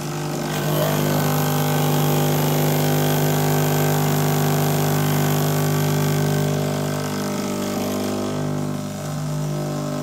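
Breville Dual Boiler's vibratory pump buzzing steadily as it pushes water through a pressure-testing portafilter during a shot. Its tone and loudness shift a little in the last few seconds as the flow valve on the portafilter is turned to bring the pressure to 9 bar.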